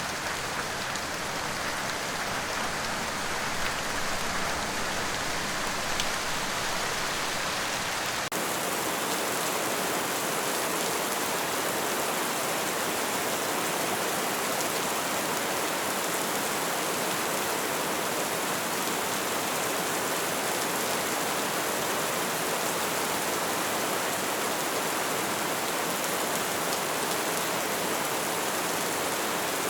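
Steady rain falling, an even hiss of drops. About eight seconds in the sound changes abruptly to a brighter, hissier rain with less low rumble.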